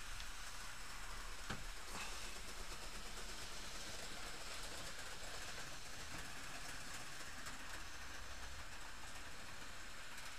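Bachmann Windhoff MPV OO gauge model train running along the layout: a steady, faint hiss-like running noise from its motors and wheels on the rails, with a single click about a second and a half in.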